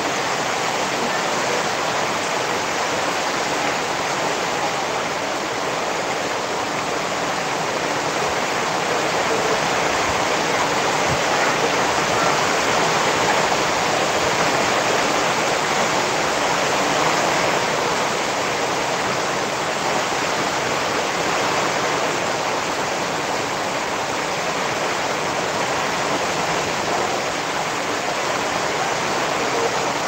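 Heavy rain falling steadily: a dense, even hiss that swells slightly in the middle.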